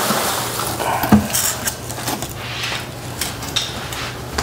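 Cardboard boxes and polystyrene packing peanuts being handled: a rustle of peanuts at first, then scattered knocks, clicks and scrapes, the loudest a thump about a second in.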